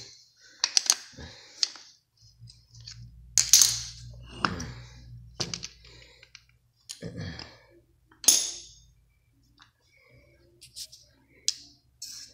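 Metal parts and hand tools of a partly dismantled Bosch alternator clinking and knocking as they are handled on a concrete floor: a string of separate sharp clicks spread over several seconds.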